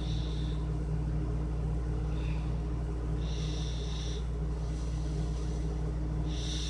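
A steady low rumble that does not change, with brief faint high-pitched sounds three times: at the start, around the middle and near the end.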